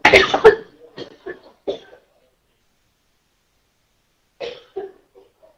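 A person in a coughing fit: a loud burst of coughs at the start, three smaller coughs over the next second and a half, then two more about four seconds in.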